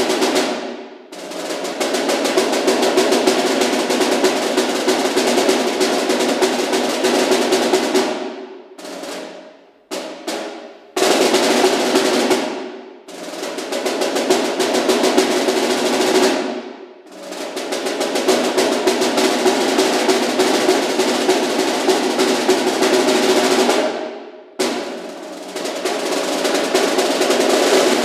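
Snare drum played solo with sticks: long sustained rolls that swell and fade away several times, dropping out briefly about a second in, around 8 to 11 seconds, near 13 and 17 seconds and around 24 seconds. One roll comes back in suddenly and loud about 11 seconds in.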